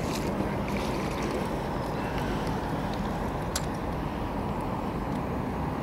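Steady wind rumble on the microphone, with a few faint clicks and one sharper click about three and a half seconds in.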